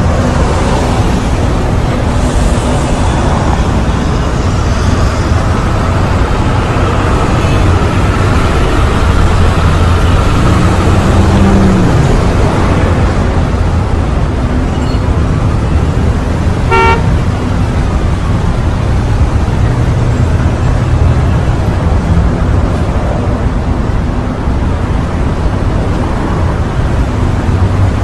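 Heavy city street traffic: a steady rumble of car and bus engines and tyres, with a short car horn toot a little past halfway.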